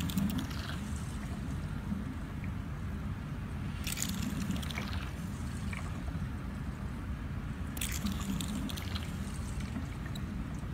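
Hydrafacial bubble pen sucking water and air off the skin: a steady low running noise from the machine with wet slurping squishes every few seconds as the suction tip draws in water.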